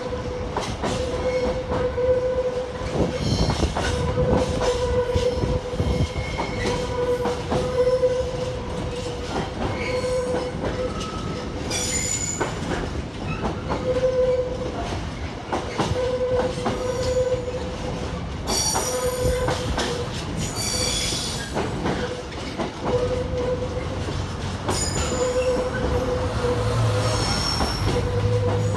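Container wagons of an intermodal freight train rolling by with a constant rumble and wheel noise. A mid-pitched wheel squeal comes and goes every second or two, with sharper high screeches now and then, and a low hum comes in near the end.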